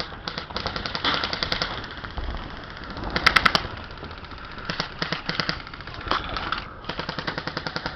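Airsoft guns firing in bursts of rapid shots, with the loudest burst about three seconds in.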